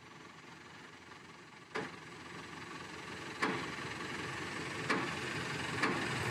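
The lifting machine's engine runs and gradually builds as it takes up the weight of a tank engine hanging in chains and straps. Four sharp metallic knocks come at intervals as the rigging tightens at the start of a gentle lift.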